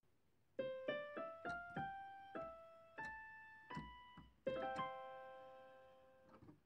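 A short piano intro jingle: about nine single notes, mostly climbing in pitch, each ringing and fading, then a final chord about two-thirds of the way in that is held and dies away.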